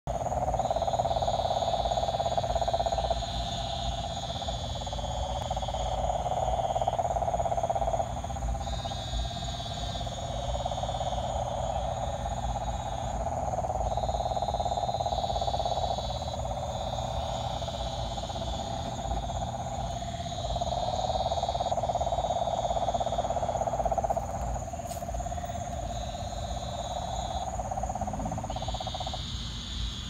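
Frogs calling in the undergrowth: a steady, droning low trill that never stops, with higher-pitched pulsed trills breaking in every few seconds in bursts of one to three seconds.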